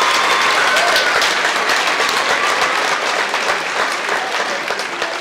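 Large crowd applauding, with a few voices calling out in the first second. The clapping thins out near the end.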